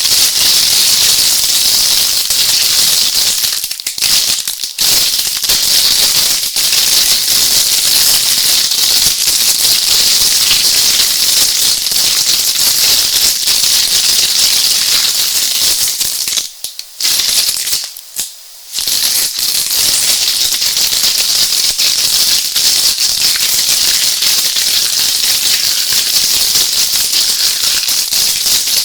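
Electric sparks crackling in a dense, continuous, hissing stream. It cuts out briefly twice a little past halfway, then resumes.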